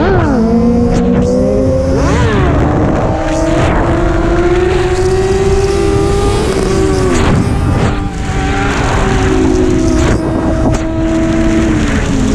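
Motorcycle engine running hard at highway speed, its pitch climbing slowly and then dropping sharply several times as the rider shifts gears and works the throttle, with wind rushing over the microphone throughout.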